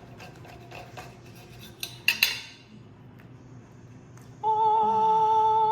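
Light scattered clinks and taps, like cutlery against dishes, with two sharper clinks about two seconds in. About four and a half seconds in, a steady held musical tone with a slight wobble starts and continues.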